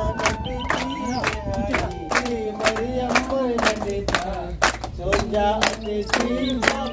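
A congregation singing a worship song together, with hands clapping a steady beat of about three claps a second.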